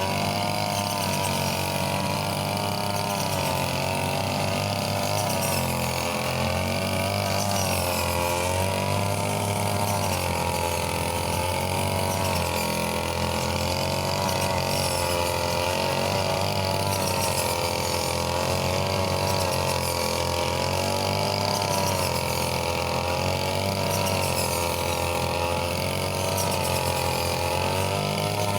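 Brush cutter's small petrol engine running steadily at high revs. Its pitch dips and recovers every couple of seconds as the blade takes the load of cutting rice stalks.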